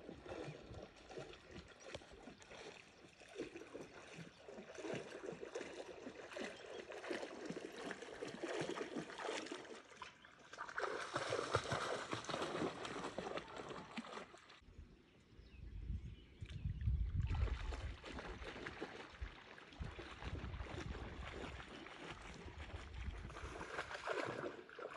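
Lake water lapping and splashing against a dock, with wind buffeting the microphone in heavy low rumbles for a few seconds past the middle.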